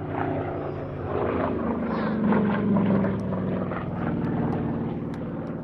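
SAAB B17's radial piston engine and propeller running in a display pass, growing louder to a peak about halfway through and then easing off.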